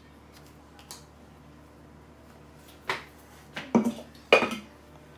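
Knocks and taps on a countertop as a ball of yeast dough is pressed flat and a plastic dough scraper is put down: a faint click about a second in, then four sharp knocks close together, loudest about four seconds in.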